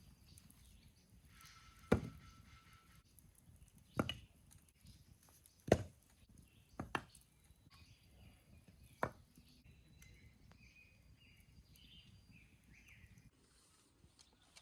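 A series of sharp knocks, six in all and one to two seconds apart, two of them close together in the middle. Faint bird chirps follow near the end.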